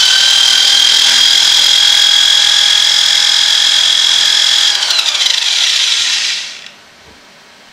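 Electric drill run at its maximum speed, about 3000 RPM, spinning the shaft of an electric motor used as a homemade AC generator: a steady high whine. About five seconds in the drill is released and the whine falls in pitch and dies away over a second and a half.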